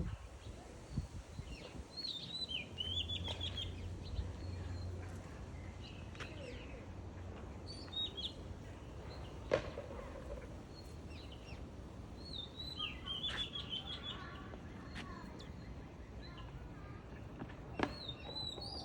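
Small birds chirping and twittering, with two longer runs of chirps about two seconds in and again around thirteen seconds, over a steady background hum; a few sharp clicks.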